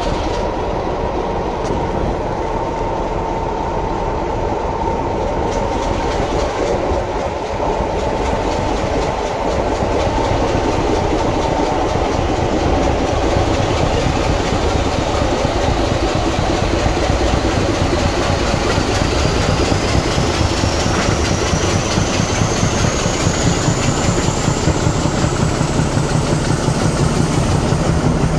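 Class 26 diesel locomotive's Sulzer six-cylinder engine working hard as the train pulls away, heard from the carriage behind. Over the second half a whine climbs steadily in pitch as the turbocharger spools up, and the low engine note grows heavier.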